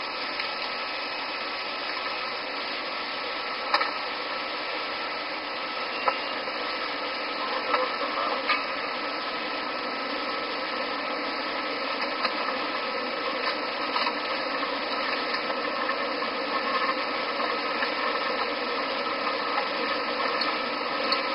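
Steady cockpit noise of a DC-9 airliner after takeoff: engine and airflow rush picked up by the cockpit voice recorder's microphone, with a few faint clicks.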